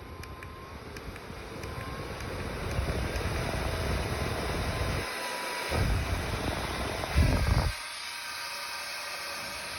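Small portable fan running with an even whir. Its airflow buffets the microphone with a low rumble that surges twice near the middle, then drops away, leaving only the steady whir.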